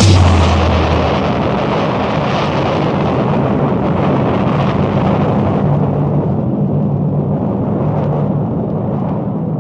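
A punk band's final chord ends about a second in, leaving a loud rumbling wash of amplified noise from the stage amplifiers with a low steady hum, slowly fading.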